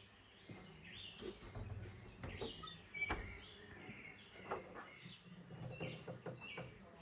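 Small birds chirping over footsteps on a dirt floor and a wooden plank door being pushed open, with a sharp knock about three seconds in.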